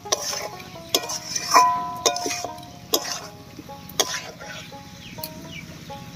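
A spatula scraping and clanking against a metal kadai as prawns and potatoes are stirred through a thick masala: about eight irregular clanks, thinning out near the end. Light background music of plucked strings plays underneath.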